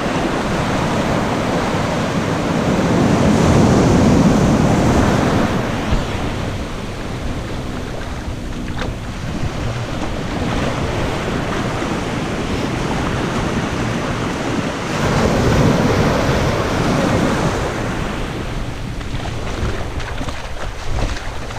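Ocean surf breaking and washing up over sand and rocks, swelling louder twice as waves come in, with wind buffeting the microphone.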